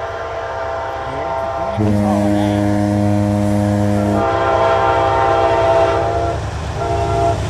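Amtrak diesel locomotive sounding its air horn as it approaches a grade crossing. Long chord blasts, fuller and louder about two seconds in, with a couple of short breaks near the end. This is the crossing warning signal.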